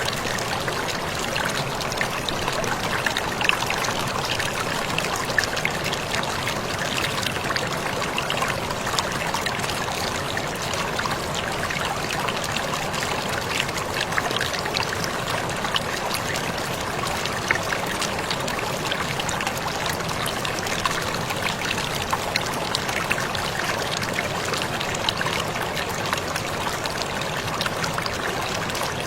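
Waterfall: a steady, unbroken rush of falling water with frequent small splashes.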